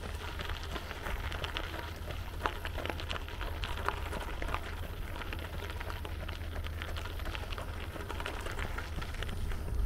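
Footsteps crunching on a loose gravel path: many quick, irregular crackling ticks, with a steady low rumble underneath.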